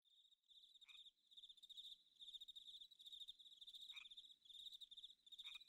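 Crickets trilling faintly and steadily in a fast pulsing buzz, with three short chirps that slide downward in pitch.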